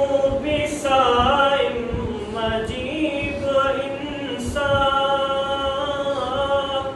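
Unaccompanied singing of a naat, an Urdu devotional poem in praise of the Prophet, in long held notes with slides in pitch between them.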